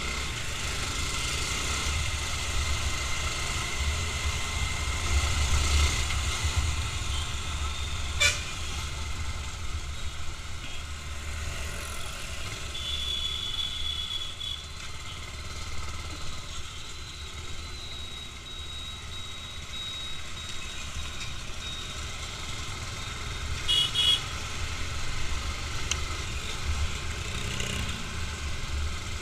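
Road traffic with a steady low rumble and vehicle horns sounding: one held for about a second and a half near the middle, then two short toots later on.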